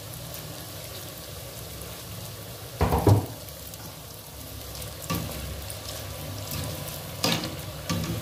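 Burmalab dough sticks deep-frying in a pot of oil with a steady sizzle. There is one loud dull thump about three seconds in, and a few light clicks later as a metal skimmer is put in among the pieces.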